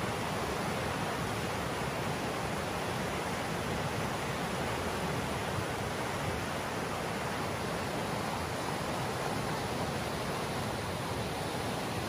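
Fast river water rushing over rocks through rapids: a steady, unbroken wash of white water.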